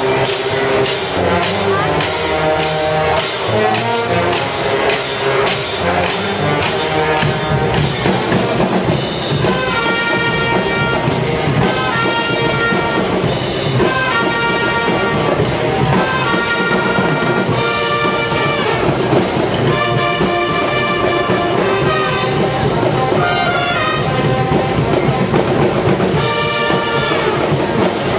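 A pep band plays with trumpets, trombones, saxophones, sousaphone and drum kit. The drums and cymbals keep a steady beat at first. About nine seconds in, the brass comes in with phrases of short held notes over the beat.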